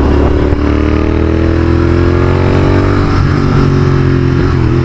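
Royal Enfield Continental GT 650's 648 cc parallel-twin engine under way through an AEW 102 exhaust with its dB killer removed, a loud, steady exhaust note rising slowly as it accelerates. The note wavers briefly about three seconds in and again near the end.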